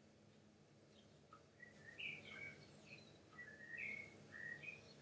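Faint bird chirps: a run of short, high chirps and brief whistled glides starting about one and a half seconds in, over quiet room tone.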